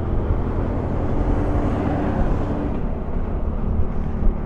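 Honda Foresight 250 maxi-scooter's single-cylinder engine running while riding, with wind and road noise. A rush of noise rises and falls about two seconds in.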